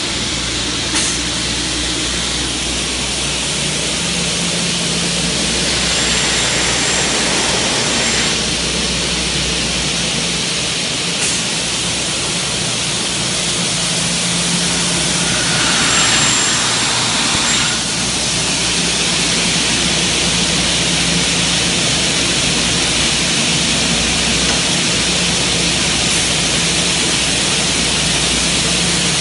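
Automatic double-head aluminium cutting saw running, a loud steady hiss over a low hum, swelling briefly a little past halfway.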